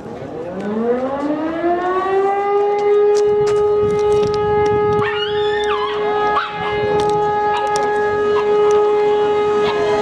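E57 electromechanical siren winding up, its tone rising for about two seconds and then holding a steady wail: the fire brigade alarm signal calling out the volunteer firefighters. About halfway through, a wavering higher sound joins briefly.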